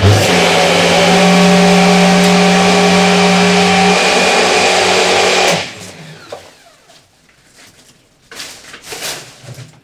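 Countertop blender running at full speed, blending the thick vegan cheesecake filling smooth: a loud, steady motor hum that cuts off about five and a half seconds in.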